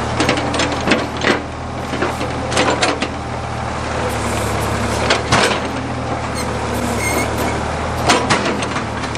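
Backhoe engine running steadily under hydraulic load, with repeated sharp cracks and knocks as a large stump is worked out of the ground.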